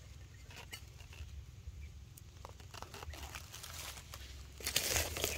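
Dry leaves and twigs rustling and crackling in scattered small ticks, with a louder burst of rustling about five seconds in.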